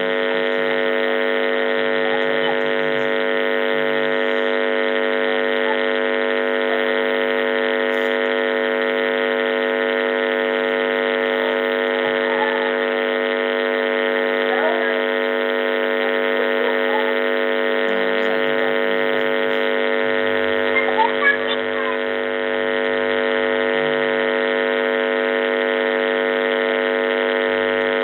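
A loud, steady electrical hum made of many fixed tones, unchanging throughout. A few faint short chirps rise above it near the middle.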